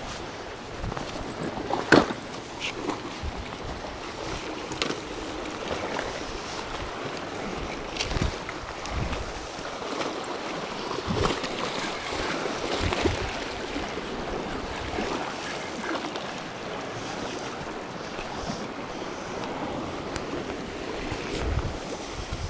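Sea surf washing against the rocks, with wind on the microphone, and a few sharp knocks, the loudest about two seconds in.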